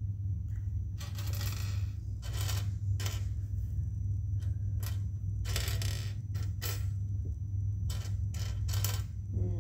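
Plastic Lego Technic pieces clicking and clattering as they are handled and pressed together, in a string of short, irregular clatters about a second apart.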